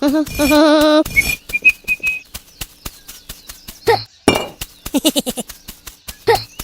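Rapid light tapping and clinking, with short high, wobbling squeaky vocal sounds near the start and again around four and six seconds in.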